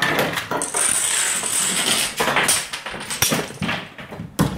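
A home-made Rube Goldberg machine running its chain reaction: dominoes and toy parts clattering and toppling in a quick series of clicks and knocks, with a thin high whine for a second or so early on and one sharp knock near the end.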